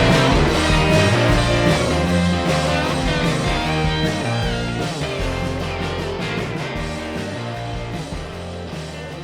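Background rock music with guitar and a steady beat, fading out gradually.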